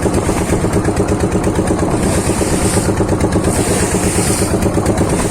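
Motorboat engine running steadily with a fast, even throb.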